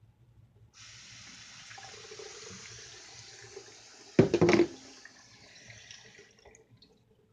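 Water running steadily, as from a tap, starting suddenly and fading out after about six seconds. A short, much louder knocking sound comes about four seconds in.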